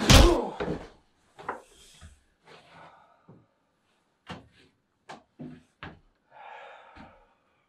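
A heavy thud of a blow landing at the very start, followed by a scattering of short wooden knocks and clunks as things are handled on a wooden bench and shelf, and a brief scrape near the end.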